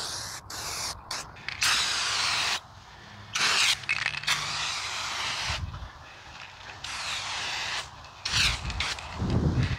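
Large Rust-Oleum Turbo Can aerosol spraying clear coat: several bursts of hiss, the longest about two seconds, with short pauses between. A low rumble comes in near the end.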